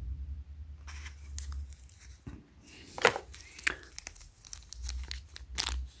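Clear plastic packaging bag crinkling and rustling as it is handled, starting about a second in, with a few sharper crackles.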